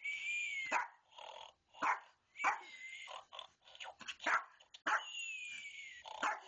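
Small puppy barking at a snoring stuffed toy in a string of sharp yaps, with growling between them. Twice, at the start and about five seconds in, a long, slightly falling whistle sounds, in keeping with the toy's snore.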